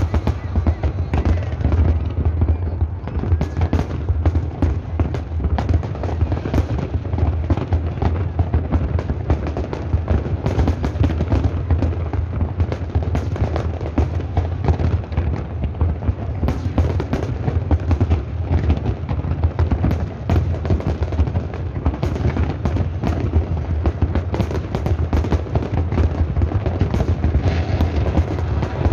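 Large aerial fireworks display: a dense, continuous barrage of shell bursts and crackles, many overlapping reports over a steady deep rumble.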